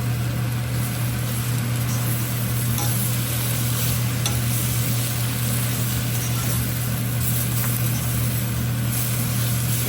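Chandan bathua greens sizzling in hot oil in a pan as they are stirred, with a few faint clicks of the spoon against the pan, over a steady low hum.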